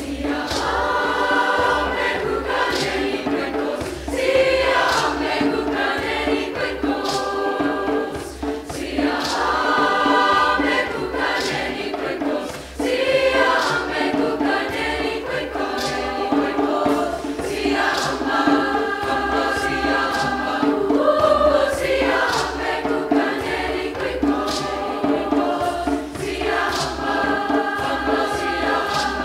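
Large mixed high school choir singing in harmony, with regular percussion strikes keeping the beat.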